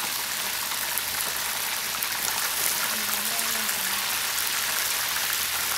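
Whole mojarra fish frying in a pan of hot reused lard: a steady sizzle with fine crackling.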